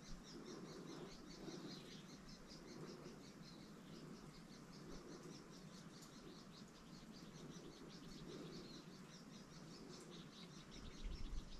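Near-quiet riverside ambience with faint, rapid high-pitched chirping, about five chirps a second.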